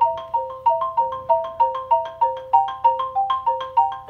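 Xylophone struck with two mallets, playing an exercise in the key of F as an even, steady run of notes, about three a second, each ringing briefly.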